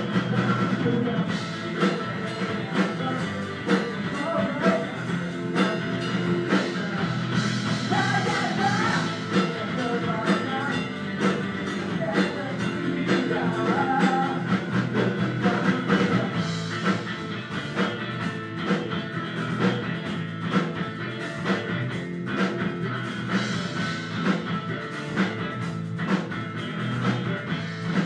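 A rock band playing live in a small rehearsal room, with electric guitar, keyboard and drum kit, the drums hitting steadily throughout.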